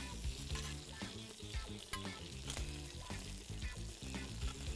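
Marinated chicken pieces sizzling on a hot ridged grill pan as they finish cooking, with soft background music underneath.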